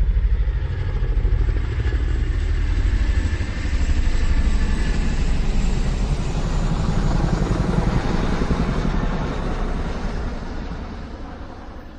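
A motor vehicle engine running with a rapid, even throb, fading away near the end.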